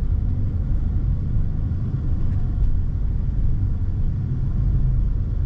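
Steady low rumble of a Citroën car driving, its engine and road noise heard from inside the cabin.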